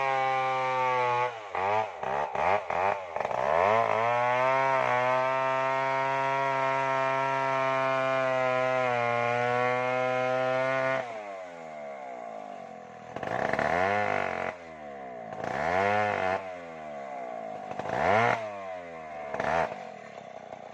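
Stihl MS070 two-stroke chainsaw held at high revs, with a few quick throttle drops near the start. About halfway through it falls back to idle and is blipped up and back down four times.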